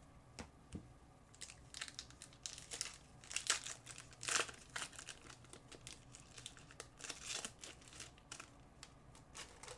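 Foil trading-card pack wrapper crinkling in irregular bursts as it is handled and opened.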